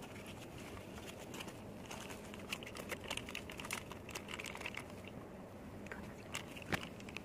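Tissue paper and a plastic zip-lock bag handled and pressed shut: a run of small crinkles and clicks, with one sharper click near the end.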